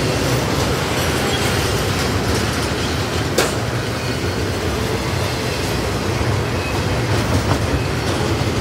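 Double-stack intermodal freight train's well cars rolling past at close range: a steady rumble of steel wheels on the rails, with one sharp knock about three and a half seconds in.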